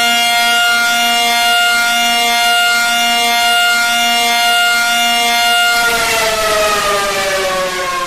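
Civil defense warning siren sounding a steady, loud chord of several tones, then winding down with its pitch falling for the last couple of seconds.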